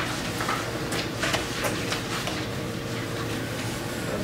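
A few faint rustles of a stack of printed paper sheets being handled, over a steady room hum.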